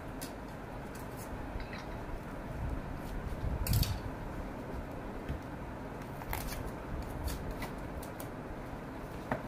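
A plastic parcel pouch being handled and cut open with scissors: scattered crinkles and a few short, sharp snips, the loudest about four seconds in.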